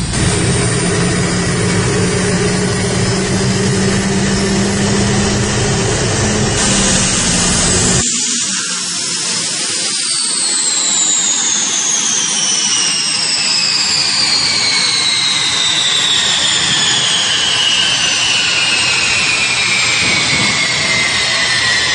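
Boeing helicopter gas turbine in a Batmobile replica running with a steady low hum under a high whine. About eight seconds in, the low hum cuts off and the whine falls slowly and steadily in pitch to the end: the turbine spooling down.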